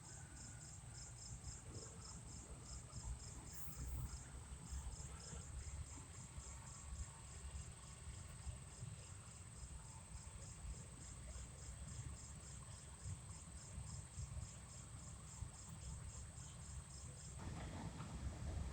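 Crickets chirping steadily in a high, even pulse of a few chirps a second, over a faint low rumble; the chirping stops shortly before the end.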